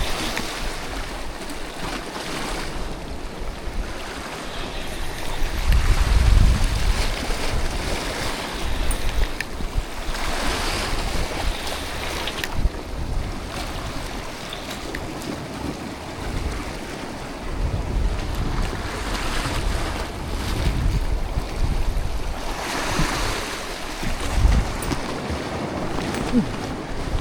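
Sea waves washing in swells, with gusts of wind rumbling on the microphone.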